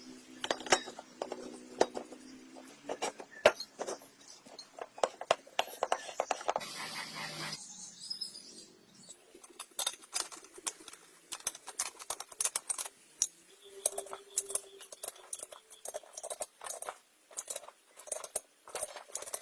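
Irregular clinks, taps and clicks of metal hand tools and parts being handled during motorcycle overhaul work.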